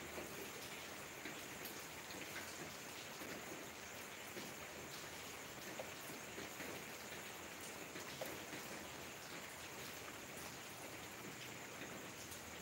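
Steady rain falling, with many individual drops ticking on surfaces.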